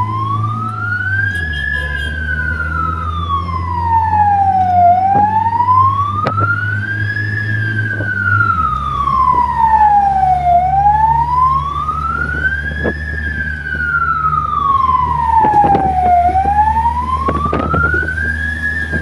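Emergency vehicle's wail siren sounding continuously, its pitch rising and falling slowly, about three and a half full cycles, with the vehicle's engine rumbling underneath. The engine's note drops about halfway through.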